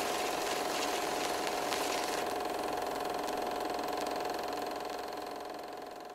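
Film projector sound effect: a steady mechanical whirr with one constant tone, swelling in over the first second and fading out near the end.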